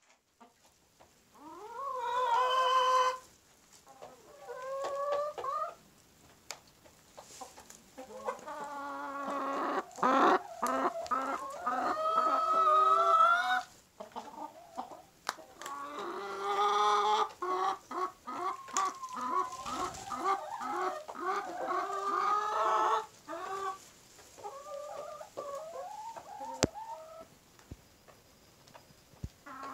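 Ayam Cemani rooster and brown hens clucking and calling in several bouts, some lasting several seconds, with short quiet gaps between.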